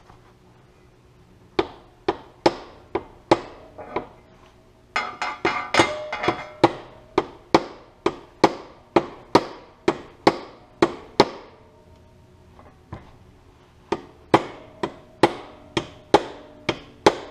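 Hammer tapping around a valve retainer on a John Deere MC's cast iron cylinder head, with the valve spring compressor under light pressure, to break loose keepers corroded into the retainers and valve stems. Sharp taps, each with a short ring: a few scattered ones at first, then steady at about two a second, a pause of a couple of seconds, then about two a second again.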